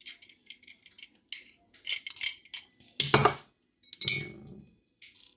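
A quick run of light clicks and clinks of glassware and kitchen utensils being handled, then two louder knocks about three and four seconds in.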